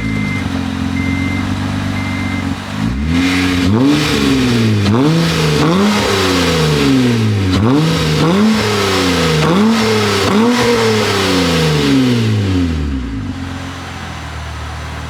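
Acura TL V6 engine idling with a short beep repeating, then revved about seven times in a row, each rev rising quickly and falling away slowly, before settling back.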